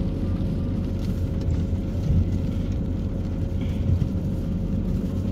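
Car running at low speed, heard from inside the cabin: a steady low rumble of engine and road noise with a faint steady hum above it.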